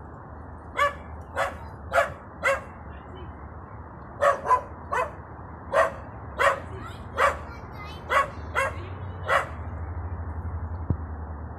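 A dog barking in short single barks, about thirteen in all: four in quick succession about half a second apart, then after a short pause a longer run of barks spaced roughly half a second to a second apart.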